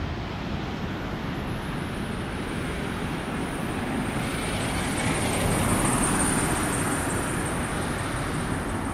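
Twin-engine widebody jet airliner on final approach, engine noise slowly growing louder with a high fan whine that swells about halfway through, over a steady low rumble of wind on the microphone.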